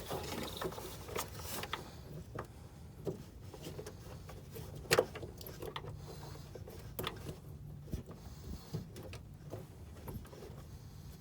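Hands working a headlight bulb into its housing behind the headlight: scattered small clicks, knocks and rubbing, with one sharper click about five seconds in.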